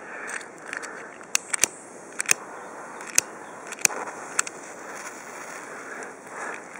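Sharp clicks and crackles, a few at a time and spread over several seconds, as a jet lighter is worked to light a firecracker's fuse.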